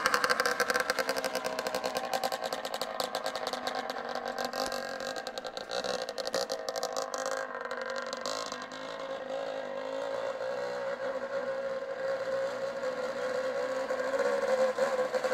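Suzuki RG Gamma 125cc two-stroke single-cylinder engine on a homemade ride-on mower, running under way. It fades as the mower drives off and grows louder again as it comes back near the end.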